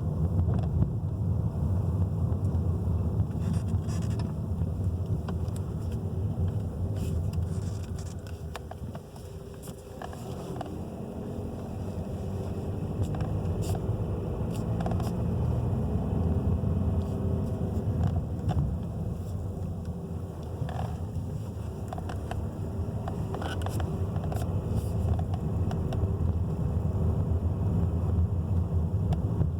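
2017 Skoda Superb driving, a steady low road-and-engine rumble that eases off briefly and builds again. Scattered short clicks sound over it, taken to be the steering-wheel noise the car has.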